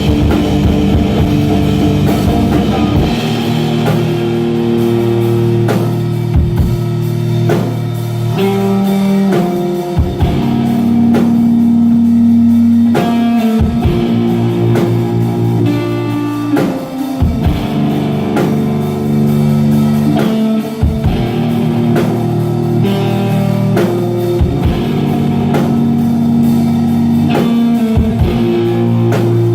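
Live instrumental post-rock/post-metal played by a guitar and drum kit duo: sustained, loud guitar chords and notes over steady drum hits.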